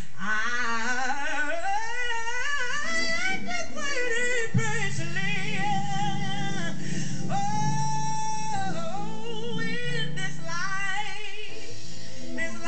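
A woman singing gospel with a live band: melismatic runs with heavy vibrato, then one long held note about seven seconds in, over sustained organ and bass guitar. It is heard through a television's speaker.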